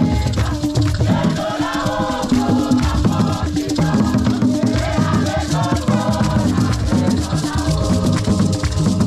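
Live traditional Ghanaian drumming on tall barrel-shaped hand drums, playing a fast, dense rhythm, with voices singing together over the drums.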